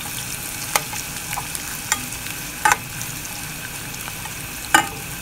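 Sliced onions sizzling steadily in hot oil in a non-stick pot as they are stirred, with a few sharp knocks of the spatula against the pan, the loudest near the end.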